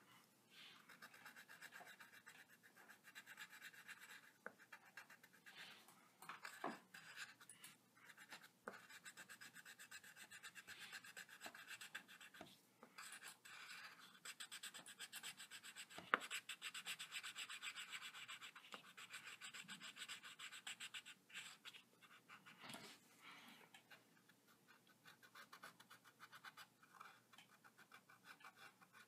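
Red coloured pencil scratching faintly on paper in quick back-and-forth strokes, shading in small hearts, with a few sharper ticks of the pencil tip along the way.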